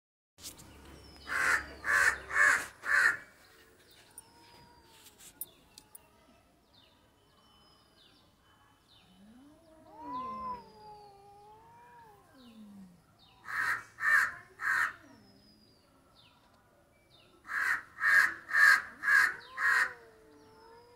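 A crow cawing in quick runs of harsh calls, about half a second apart: four near the start, three a little past the middle and five near the end. Near the middle a cat gives one long meow that rises and falls in pitch, and faint short chirps come between the caws.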